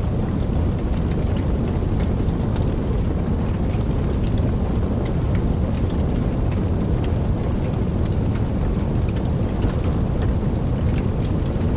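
Wood fire burning with a steady low rumble and many soft, scattered crackles and pops.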